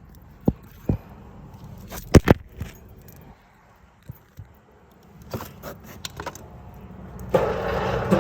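Scattered light metallic clinks and knocks of parts being handled. About seven seconds in, a machine starts running with a steady low hum, plausibly the piston air compressor's motor.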